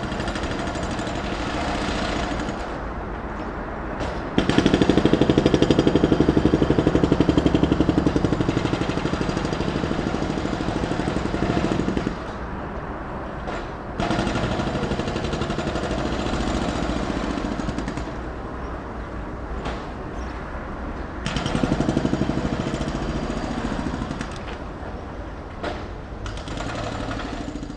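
Pneumatic drill (jackhammer) hammering rapidly in long bursts of several seconds, over a steady rumble of traffic.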